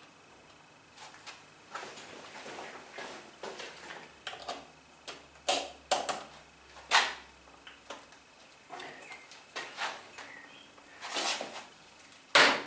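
Irregular clicks, knocks and rustles of hands fitting alarm wires onto a motorcycle battery's terminals in a tight space, with a sharp knock near the end the loudest.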